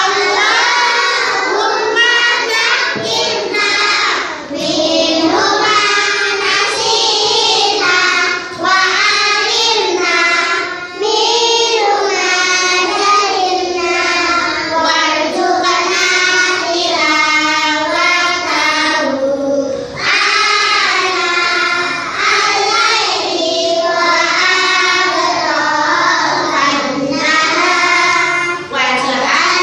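A group of young children chanting a prayer together in unison, in a sing-song melody, with short pauses between lines.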